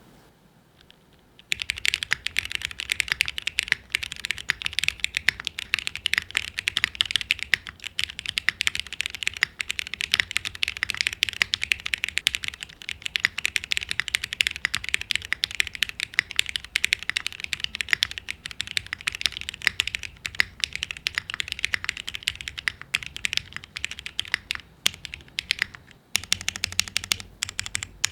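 Fast, continuous typing on a custom TOFU TKL tenkeyless mechanical keyboard with Cherry MX Black linear switches fitted with 45 g springs and PBT keycaps: a dense run of key clacks. It starts about a second and a half in, pauses briefly near the end, then resumes.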